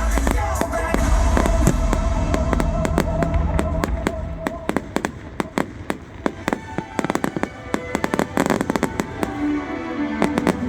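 Fireworks going off over a loud music soundtrack. In the second half, many rapid crackling pops come thick and fast while the music thins out.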